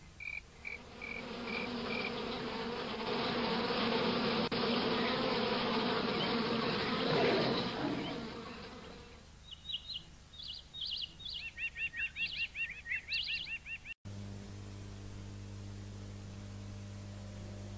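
Bee buzzing that swells and then fades, with short high chirps before it and a run of rapid, rising chirps after it, as the sound effects of a TV channel ident. Near the end the sound cuts off abruptly to a low steady hum.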